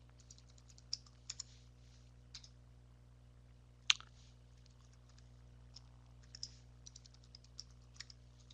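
Computer keyboard keystrokes: two short runs of typing, with a single louder keystroke about four seconds in.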